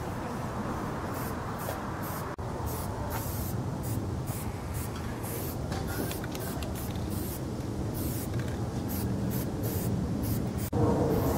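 Aerosol spray-paint can hissing in many short bursts, about two a second, as paint is sprayed in quick strokes, over a steady low background rumble.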